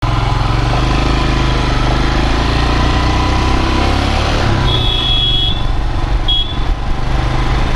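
Motorcycle engine running steadily while riding, with two horn beeps about halfway through, the first longer than the second.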